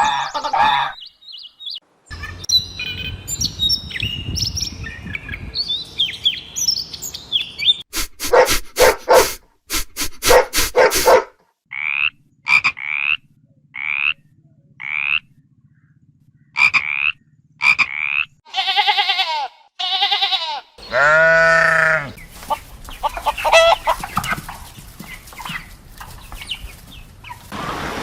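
A string of different animal calls cut one after another: chirping, a run of quick sharp calls, a high call repeated about once a second, then pitched honking calls and more chirping.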